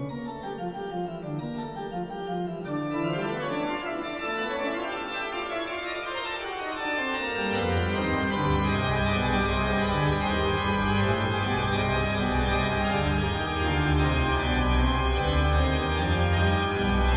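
Background music of sustained keyboard chords; a deep bass part comes in about halfway through and the music grows a little louder.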